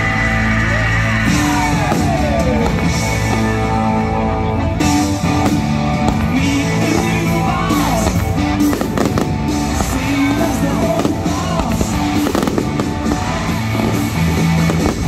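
Loud music playing throughout a fireworks display, with firework bangs and crackling bursts going off irregularly over it.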